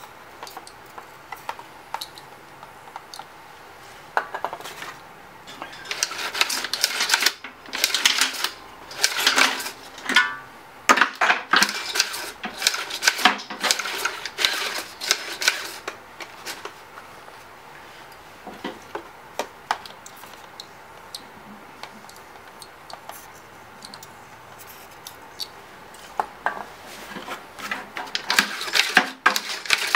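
Short hisses of silicone spray going into a stiff Honda GCV160 recoil starter, with clicking and rattling as the recoil and its plastic engine shroud are worked to free it up. The sounds come in clusters, busiest in the middle and again near the end.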